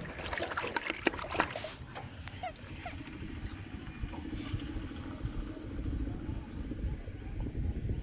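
Water splashing and sloshing in a plastic bucket as a freshly caught fish thrashes in it, busiest in the first two seconds. After that the splashing settles and a low rumble carries on underneath.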